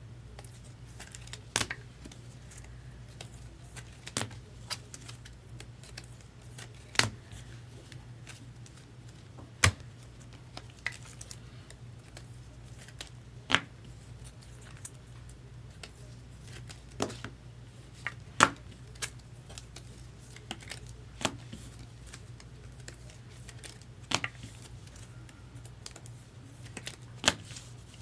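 Trading cards and their plastic holders being handled and set down on a table: sharp, short clicks and taps every one to four seconds, over a low steady hum.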